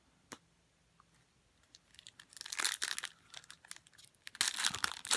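A trading card pack's wrapper being torn open by hand, crinkling and tearing in irregular bursts. There is one short tick about a third of a second in. The crackle starts about two seconds in and is loudest near the end.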